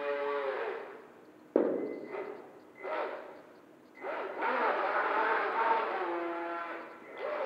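Skytech H100 RC racing boat's motor whining under changing throttle: it winds down in the first second, comes back with a sudden burst about a second and a half in, gives short blips, then runs steadily from about four seconds in, with water noise from the hull.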